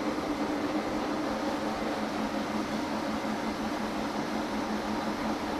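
Monarch 16 CY engine lathe running under power, spindle turning and the carriage feeding from left to right on the leadscrew: a steady, even mechanical hum with a constant low tone.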